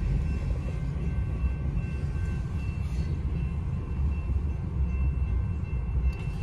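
Low, steady rumble of a manifest freight train rolling on past the crossing, heard from inside a car, with faint steady high tones above it.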